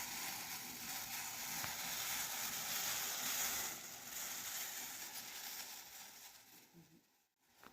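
Steady hiss of a pan of masala tea (water, tea powder and spices) heating on a stove at high flame. It fades after about four seconds and cuts out near the end.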